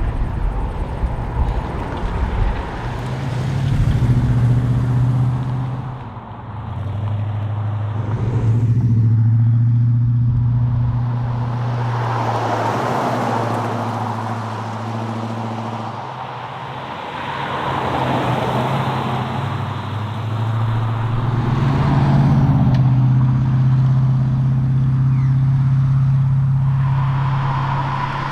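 Ford XB Falcon John Goss Special's V8 engine driving on the road, its note holding steady for several seconds at a time and dipping briefly a few times before settling again, with tyre and wind noise under it.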